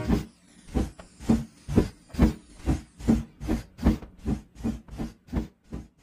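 Steam locomotive chuffing, its exhaust puffs quickening from about two a second to nearly three a second as it gathers speed, then growing fainter toward the end.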